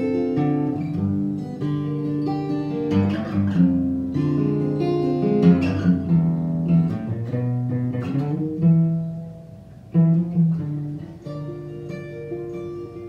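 Solo acoustic guitar playing picked and strummed chords, with several sharp strums. The playing drops quieter around nine seconds in, a hard strummed chord comes about ten seconds in, and softer picking follows.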